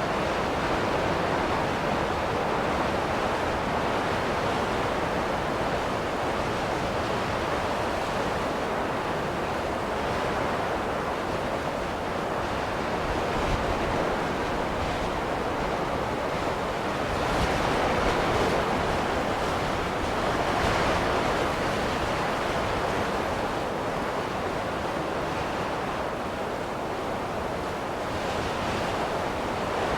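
Wind blowing in a snowstorm: a steady rushing noise that swells a little a couple of times past the middle.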